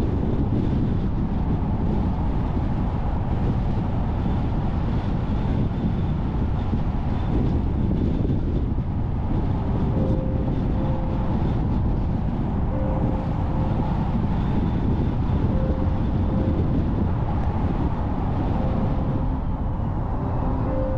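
Car driving along at road speed: a steady rumble of tyre, road and engine noise. Faint held music notes come and go from about halfway, growing stronger near the end.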